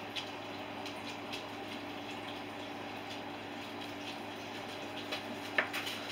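Steady low hiss with a constant faint hum, broken by a few light clicks and taps from handling a hot glue gun and craft materials; the sharpest tap comes near the end.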